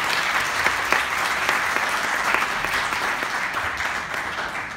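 Theatre audience applauding, the clapping dying away near the end.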